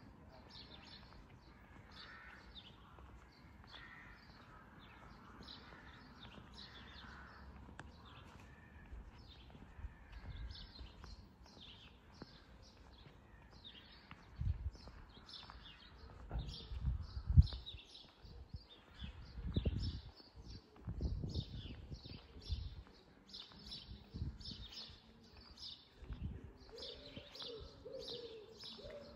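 Small songbirds chirping, short rapid calls repeated all through, with a pigeon cooing near the end. Irregular low thumps come and go from about halfway on.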